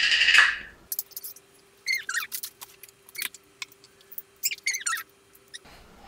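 Several short, high, chirping squeaks in two clusters, about two seconds in and again near the end, with light clicks and taps among them.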